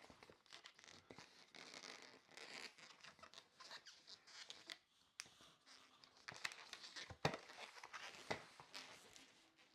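Latex twisting balloons (160s) being handled and twisted together, faint rubbing and squeaks of the latex with scattered small clicks and a few sharper ticks in the second half.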